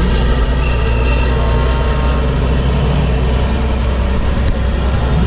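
Tatra 813 8x8 truck's diesel engine running hard and steady under load as it climbs a steep dirt slope, with a deep rumble.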